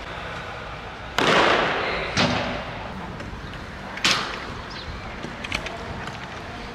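Padel ball being struck by rackets during a rally drill: three sharp hits, the first two with a long echo off the covered hall.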